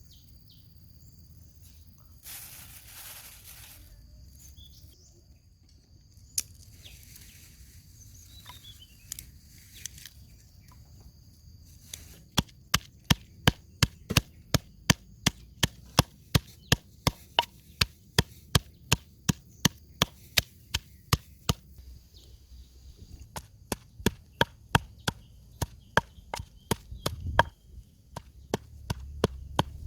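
Knife chopping on a cutting board: a steady run of sharp strokes, about two or three a second, starting about halfway in and pausing briefly before carrying on. Birds chirp before the chopping starts.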